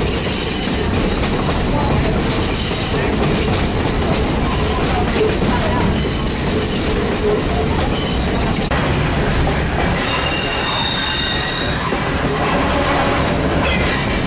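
Great Smoky Mountains Railroad excursion train running, heard from an open car: a steady rumble of wheels on rail, with repeated bouts of high wheel squeal on curves, the longest about ten seconds in.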